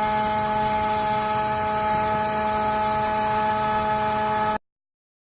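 Small DC-motor fan running at a steady speed, a continuous whir with a constant hum. It cuts off abruptly near the end.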